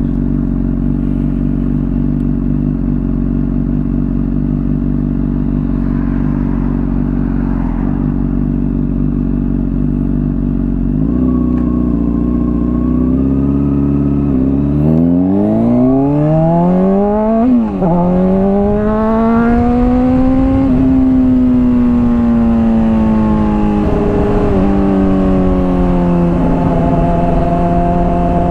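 Honda CBR600RR inline-four with a Hotbodies Stinger slip-on exhaust, idling steadily at first. About eleven seconds in the engine note climbs as the bike pulls away. A quick upshift about halfway through makes the pitch drop sharply for a moment, and after that the engine rises and falls with the throttle while riding.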